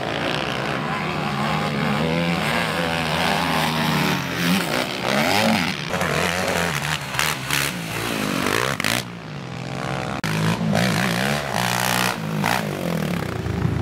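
Racing quad bikes' engines revving hard on a dirt track. Several engine notes overlap, rising and falling in pitch as the riders work the throttle and gears.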